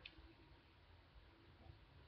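Near silence: faint room tone from a webcam-and-headset recording, with a low steady hum.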